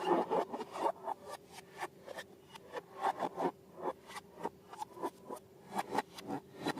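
Slime being mixed and pressed, giving quick, irregular sticky clicks and crackles, several a second.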